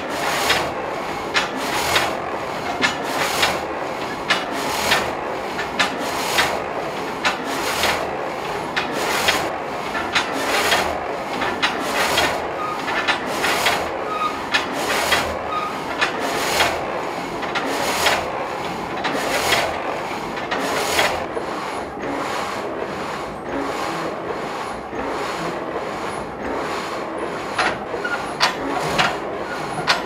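Gang saw of a Dutch wind-powered sawmill: a frame of several vertical blades cutting through a log, rasping in a steady rhythm of strokes as the frame runs up and down.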